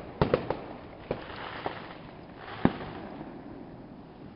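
Fireworks bursting in the distance: a quick run of three sharp bangs, then single bangs about a second in and after two and a half seconds, with a fainter crackling hiss between them.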